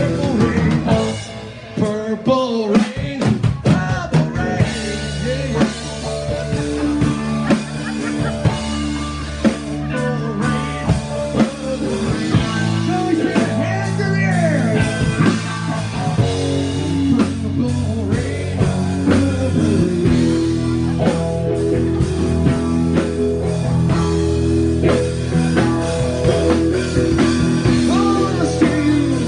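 Live rock band playing an instrumental passage: drum kit, bass and electric guitar, with a lead line full of bending, sliding notes over the band.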